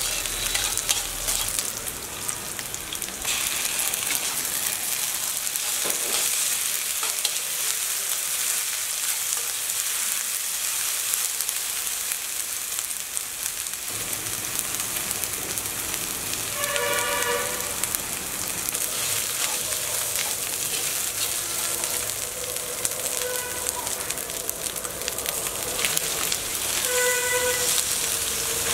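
Shallots and ginger-garlic paste sizzling steadily in hot oil in an iron pan, stirred now and then with a metal spatula. A short pitched tone sounds twice, about halfway through and near the end.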